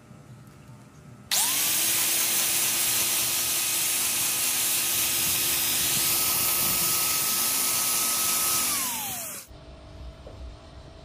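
A power tool's motor spins up about a second in, runs at a steady high pitch for about seven seconds, then winds down and stops.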